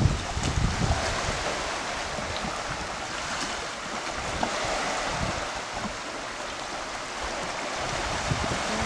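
Sea water washing and lapping, with wind buffeting the microphone for about the first second.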